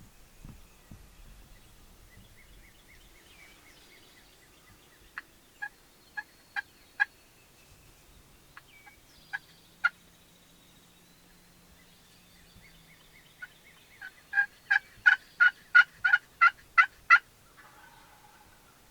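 Wild turkey calling in series of sharp yelps: a few separate ones near the middle, then a louder run of about ten quick yelps, about three a second, near the end.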